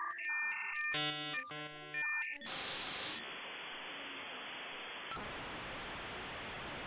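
Dial-up modem connection sound: a series of steady beeping tones that change pitch in steps, then a dense cluster of tones for about a second and a half, then a steady hiss of static from about two and a half seconds in.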